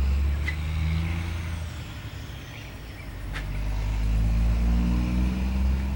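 Low engine rumble of a motor vehicle, swelling, easing off, then swelling again.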